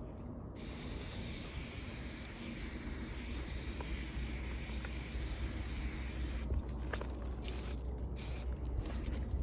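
Aerosol spray-paint can hissing: one long continuous spray starting about half a second in, then several short bursts near the end.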